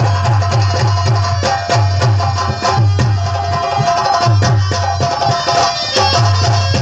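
Loud live folk music driven by hand drums, with a fast steady beat of about four low drum strokes a second under a sustained melody.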